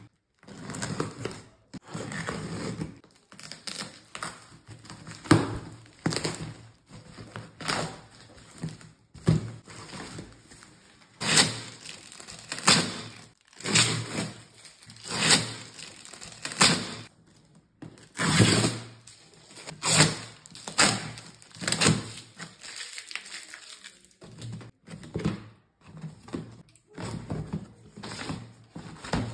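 A taped cardboard shipping box being opened by hand: a long series of separate rips, crinkles and knocks from packing tape and cardboard flaps, with dull thumps as the box is handled.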